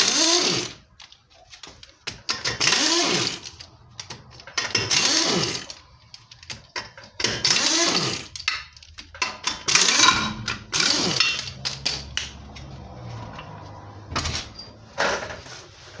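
Impact wrench hammering the lug nuts off a car wheel in short bursts every two to three seconds, its motor pitch rising and then falling in each burst.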